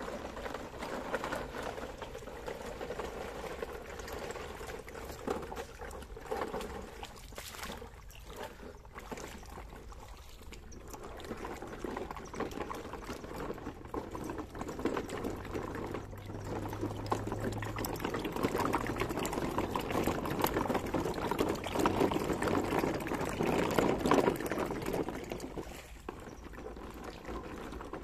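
Shallow stream water splashing and sloshing as a line of plastic toy trucks is towed through it on a string. It grows louder for a few seconds past the middle.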